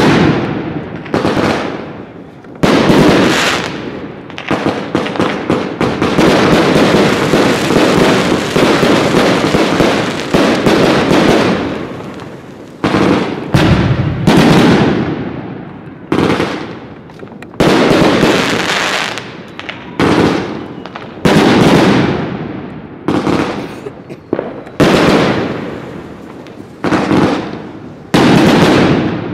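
A 100-shot Lucky Fireworks 5027 firework cake firing. A sharp report comes about every second, and each one trails off into crackling. For several seconds in the first half, the crackling runs on unbroken.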